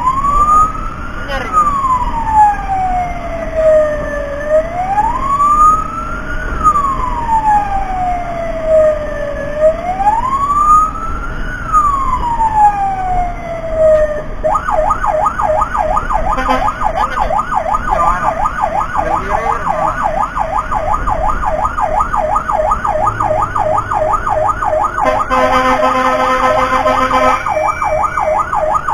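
Emergency-vehicle electronic siren, loud: a slow wail rising and falling about every five seconds, switching about halfway through to a fast yelp of three or four sweeps a second. A steady tone sounds over the yelp for about two seconds near the end.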